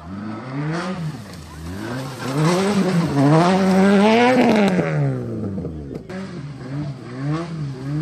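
Peugeot 208 rally car's engine revving up and down again and again as the car, stuck in a grassy roadside ditch, tries to drive back out. The highest, loudest rev comes about four seconds in, with shorter revs after it.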